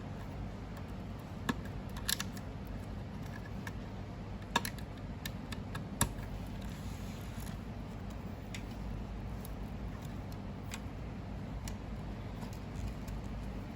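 Scattered small clicks and taps of hands working on a fusion splicer's internal cable connectors and parts, a few sharper clicks in the first half, over a steady low hum.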